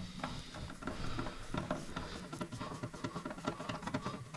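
Hand screwdriver driving a screw to fix the bottom clip of an electric shower back on: a run of small, irregular scratchy clicks.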